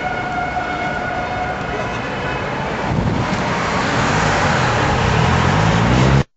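City street traffic. A steady horn-like tone fades out over the first couple of seconds, then a vehicle engine speeds up with its pitch rising over the traffic noise, until the sound cuts off abruptly near the end.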